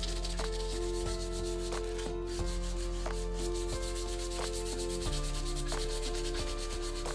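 Hand sanding: quick, even back-and-forth rubbing strokes of abrasive on the workpiece, over background music playing a melody of held notes.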